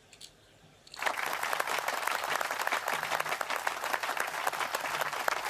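Audience applause that starts suddenly about a second in and carries on steadily, greeting the end of a comedy skit.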